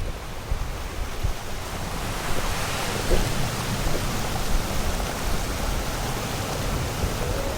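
Sea surf and rushing water with wind on the microphone: a steady hiss that swells about two seconds in. A few notes of music begin right at the end.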